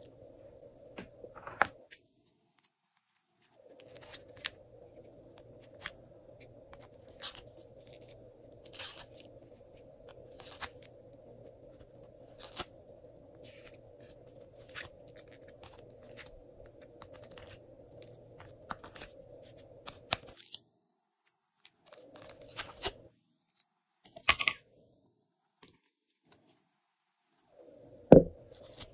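Close-up handling sounds of fingers and nails on hard plastic slime containers and cube trays: scattered sharp clicks and crackles. A heavier knock near the end, as a tray is set down on the table.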